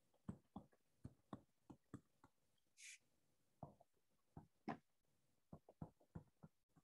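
Faint, irregular taps and clicks of a stylus on a tablet screen during handwriting, about a dozen short ticks, with a brief hiss about three seconds in.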